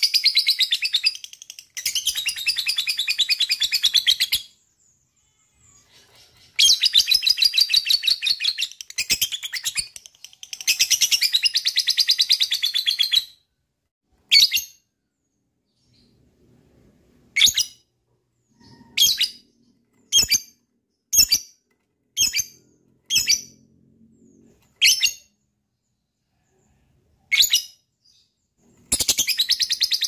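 Lovebird 'ngekek' chattering: long, rapid trills of high scratchy chirps in bouts of two to four seconds. Midway these give way to a string of single sharp chirps, and a new long trill starts near the end.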